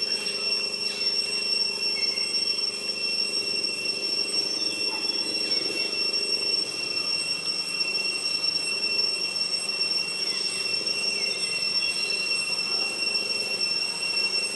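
Forest insects droning, a steady high-pitched ring that holds an even level throughout, with faint short chirps over it.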